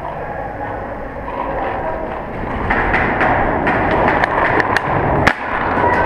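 Paintball markers firing in an underground cave: a run of sharp cracks in the second half, over a steady rough noise that grows louder about halfway in.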